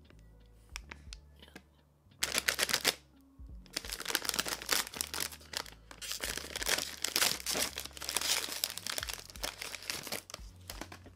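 Plastic wrapper of an ice cream cone crinkling and tearing as it is opened and peeled off, in quick irregular crackles starting about two seconds in and going on almost to the end. Soft background music underneath.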